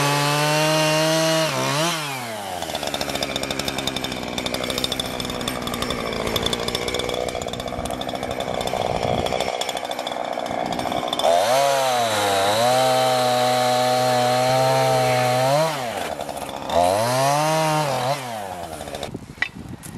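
Petrol chainsaw revved to full throttle, then dropping to a lower, rougher note for several seconds as it cuts through brush and branches. It revs up high again twice and is throttled back near the end.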